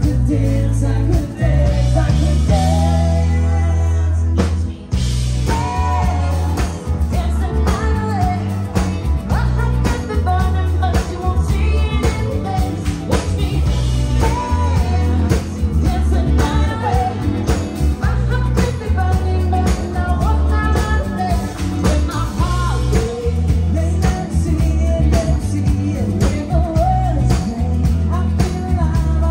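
A live pop-rock band playing with singing, heard from right beside the drum kit: drums and cymbals, a heavy bass line and lead vocals. The band drops out briefly about five seconds in, then comes back.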